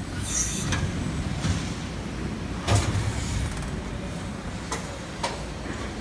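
High-speed plastic injection molding machine running in production, a steady low mechanical rumble broken by several sharp clacks, the loudest a little before halfway, and a brief high hiss near the start.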